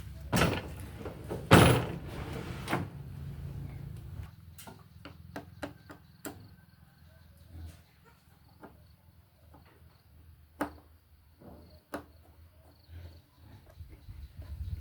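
A series of knocks, clicks and rattles from objects being handled, loudest and busiest in the first three seconds with one hard knock about a second and a half in, then sparser, lighter clicks.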